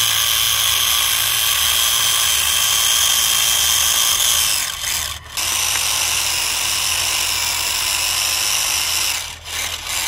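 Electric drive motor and gearbox of a homemade four-wheel-drive remote-control model tractor whining steadily under load as it pulls a disc harrow through sand. The whine drops out briefly about halfway through, picks up again, and stops shortly before the end.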